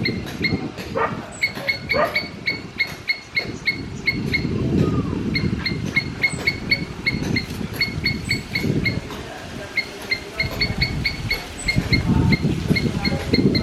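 A squirrel calling in runs of short, sharp chirps, about four a second, with pauses between the runs, over a low rumble.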